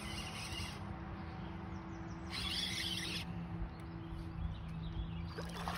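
Steady low hum of a boat motor, two even tones, under a low wash of wind and water noise, with a short hiss a little over two seconds in.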